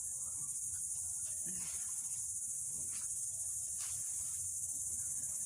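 A steady, high-pitched chorus of insects such as crickets or cicadas buzzing without a break.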